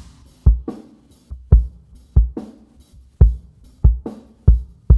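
Playback of a recorded acoustic drum kit in which deep, heavy kick drum hits dominate, about two a second in an uneven pattern. The kick's low end comes from a Yamaha NS10 woofer used as a sub-kick microphone. Lighter snare and cymbal hits sit above it.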